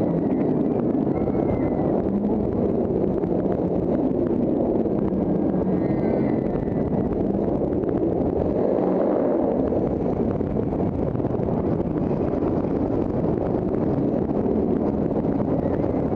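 Wind blasting across an on-ride camera's microphone, mixed with the rumble of the Incredible Hulk steel roller coaster train running along its track at speed; a steady, loud roar.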